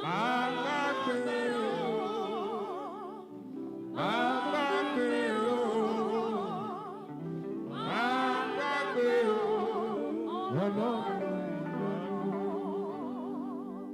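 Worship song: a solo voice sings three long phrases with heavy vibrato, each starting about four seconds apart with a rising swoop. Sustained accompanying chords run underneath.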